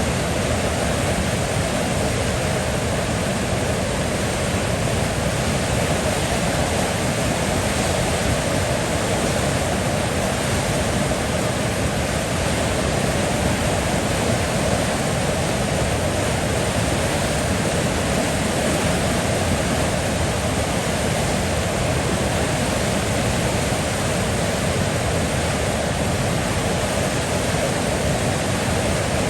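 Steady rushing of flowing river water, an even, unbroken noise with no distinct splashes.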